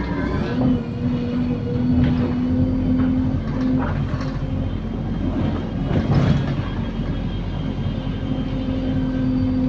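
Optare Solo SR bus with a Voith automatic gearbox heard from on board while under way: a steady whining tone over the drivetrain rumble, dropping out twice, with sharp knocks and rattles from the body, a bus its rider calls a rattlebox.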